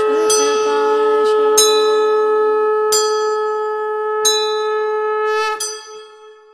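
Conch shell (shankh) blown in one long steady note while a bell is struck about every second and a half, four times, then rung rapidly. Both stop about five and a half seconds in, and the ringing fades away.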